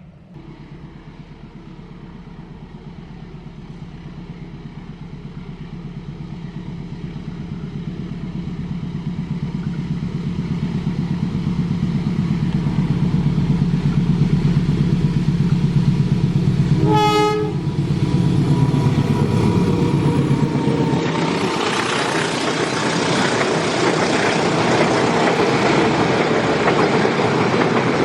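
A train approaching a level crossing, its engine rumble growing steadily louder, with one short horn blast about 17 seconds in; then the cars roll past with a steady wheel clatter.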